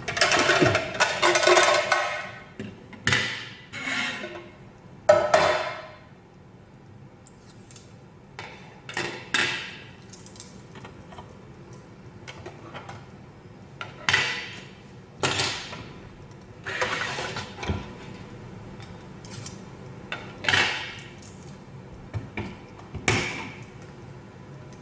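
Hard plastic parts being handled: a spiralizer's blade cartridges slid out of their storage drawer and plastic case and set down on a wooden table, in a string of separate short clacks and scrapes.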